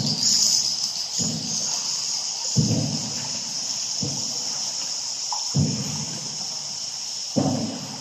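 Boat paddle strokes in the cave river, a low swish about every one and a half seconds, under a steady high-pitched insect chirring.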